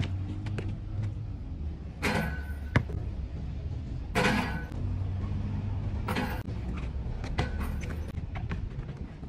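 A basketball bouncing on a concrete court and sneakers scuffing and stepping during one-on-one play, as sharp knocks throughout. Four short rushing noises and a low steady rumble run underneath.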